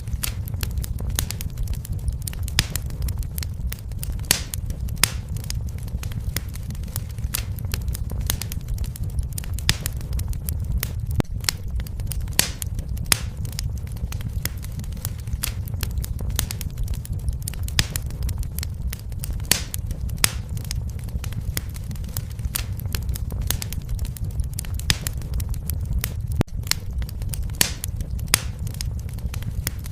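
Wood fire burning in a fireplace: a steady low rumble of the flames with frequent irregular crackles and sharp pops.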